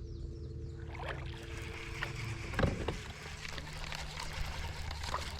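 Electric trolling motor running on a bass boat: a steady low hum with a higher whine that cuts off about halfway through. A few small clicks and knocks sound over it.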